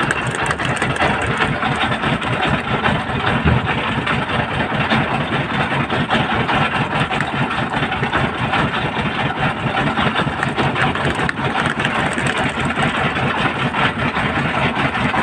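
Fishing boat's engine running steadily at low speed, with a fast, even low beat.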